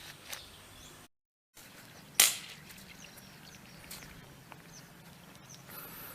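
A single sharp shot from a Predator OD 38 PCP air rifle about two seconds in, after the sound briefly drops out. Faint bird chirps in the background.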